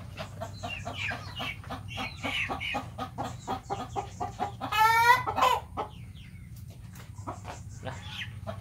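Chickens clucking in quick short calls, with one loud, drawn-out squawk about five seconds in; the clucking thins out after about six seconds.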